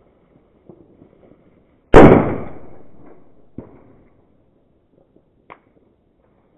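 A firecracker going off with one loud bang about two seconds in, its echo dying away over about two seconds. A smaller crack and a faint pop follow.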